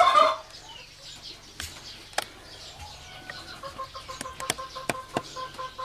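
A turkey's gobble trailing off at the start, then a handful of sharp knocks and clanks from a welded steel gate being worked onto its hinges, with poultry clucking in the background.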